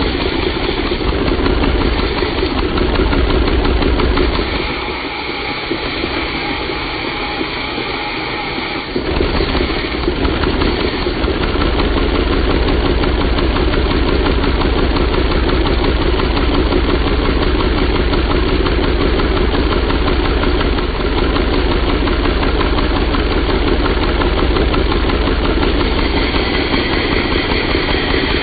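LEGO inline-four vacuum engine running on suction from a hose: a fast, even clatter of its pistons and valves. The sound drops for about four seconds, from about four and a half seconds in, then comes back at full strength.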